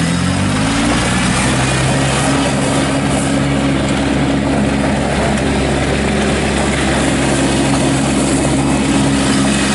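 Kubota B2301 compact tractor's three-cylinder diesel engine speeding up over the first second or so, then running steadily at the higher engine speed.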